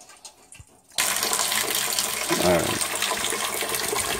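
Water streaming from a hole drilled in a boiler expansion tank and splashing into a partly filled plastic bucket. The stream starts suddenly about a second in and runs steadily, the tank still draining.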